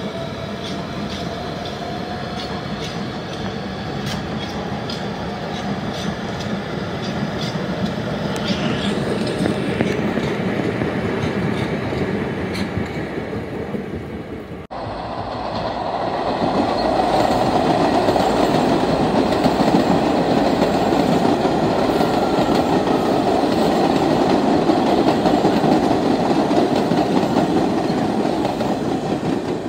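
Subway trains of R160B cars with Siemens propulsion passing on the tracks: steady wheel and rail noise with the motors' faint whine, rising in pitch over the first few seconds. Halfway through there is a sudden cut, and another train passes, louder, with wheels clattering over the rail joints.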